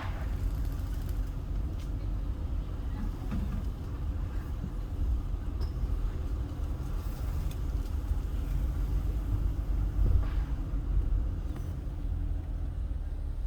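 Car driving slowly, a steady low rumble of engine and road noise, with a couple of light knocks, one at the start and one about ten seconds in.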